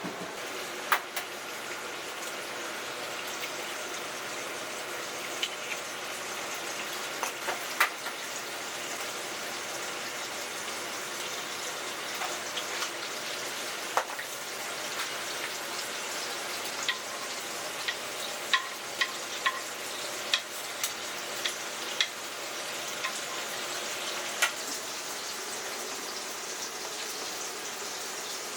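Cafe kitchen work: a steady hiss like food sizzling on a hot pan or water running, with sharp clinks of utensils and dishes scattered throughout, several close together in the second half.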